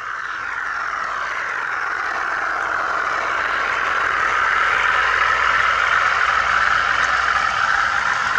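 OO gauge model Class 37 diesel locomotive hauling a rake of coaches along the track, a steady running sound growing louder as it approaches.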